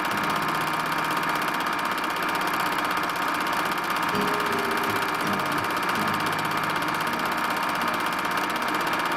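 Steady whirr of a home-movie film projector running, with faint music underneath.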